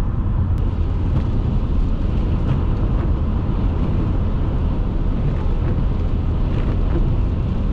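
Steady road noise inside a moving car's cabin: engine drone and tyres running on a wet highway.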